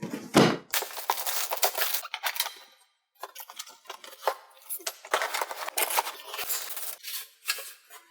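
A CPU cooler's packaging being handled and unwrapped: plastic wrap and cardboard rustling and crinkling, with small knocks, pausing briefly about three seconds in.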